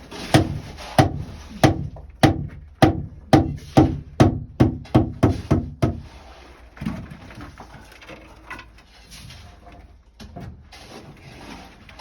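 About a dozen hard blows of a sledgehammer on a mine timber, coming a little faster as they go, driving a tight-fitting timber into place; the blows stop about six seconds in.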